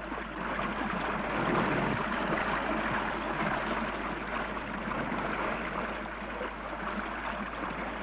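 Steady rushing and washing of sea water, easing off slightly toward the end.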